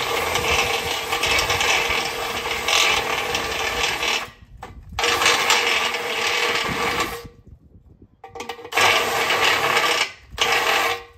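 Cordless drill with a gold drill bit boring out a pilot hole in an aluminium gate post for the lock. It runs in four spells with short pauses between them, the first about four seconds long.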